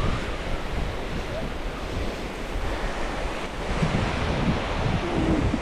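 Sea waves washing onto the shore, nearly drowned by strong wind buffeting the microphone with a heavy low rumble.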